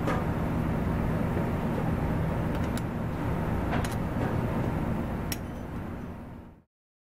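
Steady mechanical hum of shop background noise, with a few small metallic clicks from hands working the throttle cable and its adjuster at the carburetor. The hum fades to silence near the end.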